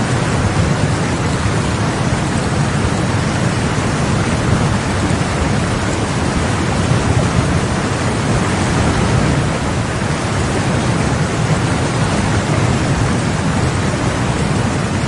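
River rapids rushing: a loud, steady, deep roar of churning white water with no breaks.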